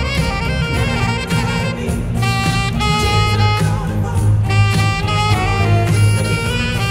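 Saxophone playing a melody of held and moving notes over a bass-heavy musical accompaniment.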